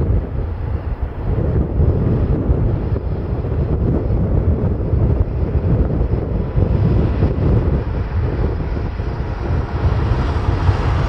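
Jet aircraft engines rumbling at an airport, with wind buffeting the microphone; higher-pitched engine noise grows in near the end.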